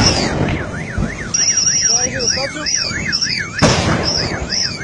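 Car alarms wailing in steady rising-and-falling sweeps, cut across about three and a half seconds in by a sharp, loud gas cylinder explosion blast.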